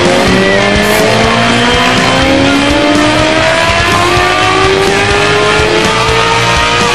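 2004 Yamaha R6's inline-four engine under load on a chassis dyno, revving up in a long pull. It drops in pitch just after the start, then climbs steadily in pitch to the end.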